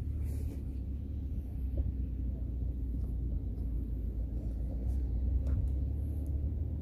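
Wind buffeting an outdoor microphone: a steady, fluctuating low rumble. A few faint clicks are heard during it.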